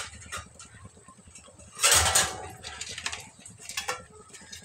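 Aloo pakora deep-frying in hot oil in a kadhai, with continual sizzling and fine crackling. About two seconds in comes a brief, louder rush of noise.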